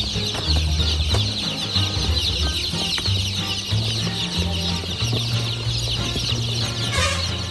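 A large crowd of newborn chicks peeping constantly, many high chirps overlapping into a dense chorus. Low held notes, like a music bass line, sit underneath.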